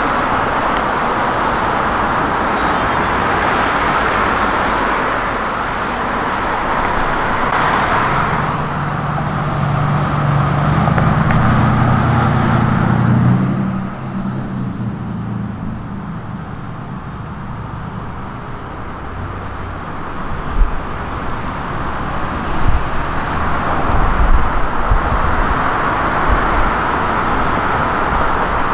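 Road traffic going by: a steady wash of tyre and engine noise that swells and fades. One vehicle's low engine drone is loudest near the middle and drops off suddenly, and a few low thumps come toward the end.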